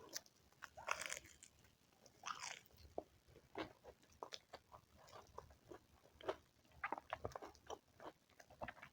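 Eating sounds: a person chewing and biting food, with a scatter of short crisp crunches and mouth clicks and a couple of longer wet smacks.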